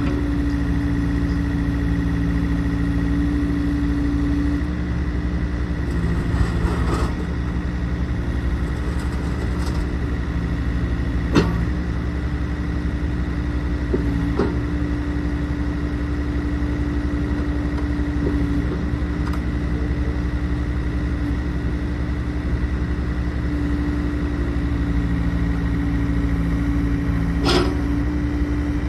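Yanmar diesel engine of a Komatsu PC45MR-3 mini excavator running steadily, its pitch shifting slightly now and then, with a few sharp knocks.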